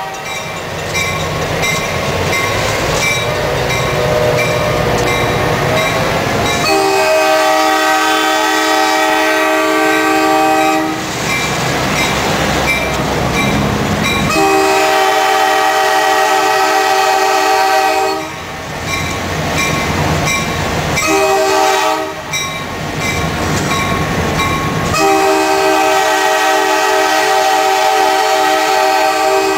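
A locomotive's Nathan K5LA multi-chime air horn sounds the grade-crossing signal: two long blasts, one short and one long. Between the blasts the diesel locomotive runs and rumbles along the rails.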